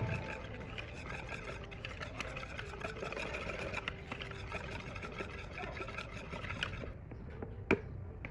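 Irregular scraping and clicking of kitchen utensils, with one sharp knock near the end.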